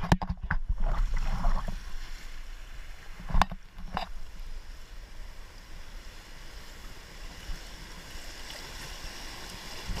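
River water rushing past and around an inflatable raft, the rush growing toward the end as the raft nears a rapid. A few sharp knocks in the first four seconds.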